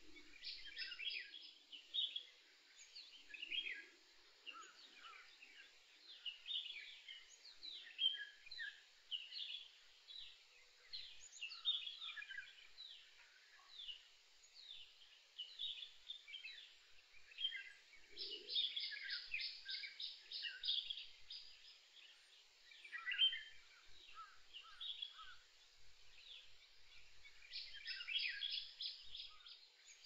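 Several wild songbirds singing and chirping at once, short high notes overlapping throughout. A fast trill of rapidly repeated notes comes about two-thirds of the way in and again near the end.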